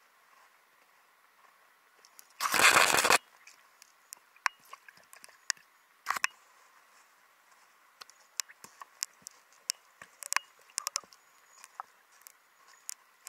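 Underwater sound: a brief rushing burst about two and a half seconds in, then scattered sharp clicks and ticks, more of them in the second half.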